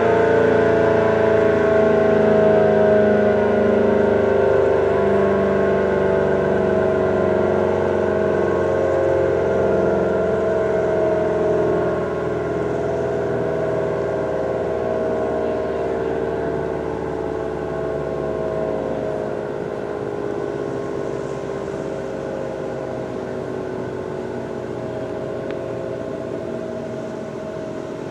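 ACA Allertor 125 outdoor warning siren winding down, its tone sliding slowly lower in pitch and fading. The level holds steady without the rise and fall of a rotating horn, because the siren's rotator is broken.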